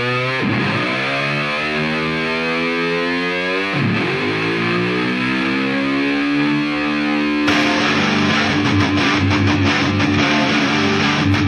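Background rock music: a distorted electric guitar playing long notes that glide in pitch and swoop down and back up twice. About seven and a half seconds in, a heavier full-band section with drums comes in.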